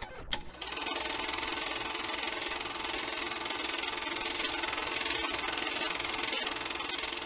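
Steady, rapid mechanical rattle of a running film projector, a sound effect laid under an old-film countdown leader, with a sharp click just after the start.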